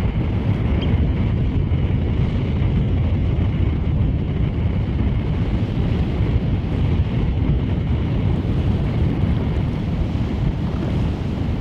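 Steady wind buffeting the microphone, over the rush of shallow river water and small waves along a stony seashore.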